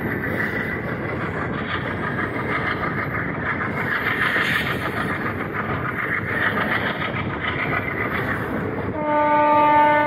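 Passenger train running at speed, wheels clicking over rail joints under steady running noise. Near the end the ALCO diesel locomotive's horn starts, one steady multi-tone blast that is the loudest sound here.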